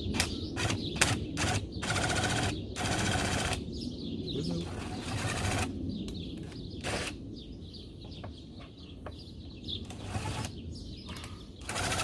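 Cordless power driver set to forward, running in several short bursts of about a second each as it drives in a screw, with sharp clicks in the first couple of seconds.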